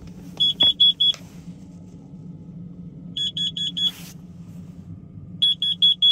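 Carbon monoxide alarm sounding: three groups of four short, high-pitched beeps, a new group every two to three seconds. This is the alarm's warning that it has detected carbon monoxide.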